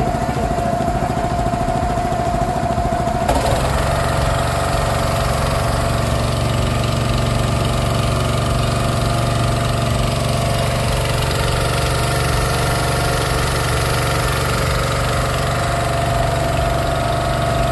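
Motorboat engine running steadily with a low, evenly pulsing rumble; a steady hiss joins it about three seconds in.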